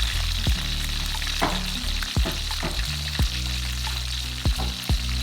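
Red tilapia deep-frying in hot oil, a steady crackling sizzle, over soft background music with a low beat.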